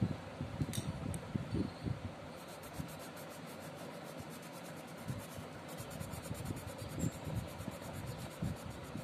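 A pencil rubbing and scratching on paper in short, irregular strokes while an area of a drawing is coloured in.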